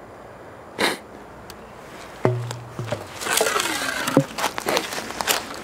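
Handling noises as a large canister firework bomb is lowered into an upright launch tube: a knock, then a hollow clunk that rings briefly a little over two seconds in, a scraping slide, and another hollow knock against the tube just after four seconds.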